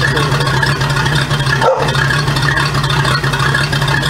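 Boat's electric power-tilt motor running steadily with a loud hum, raising the engine back up off the ground.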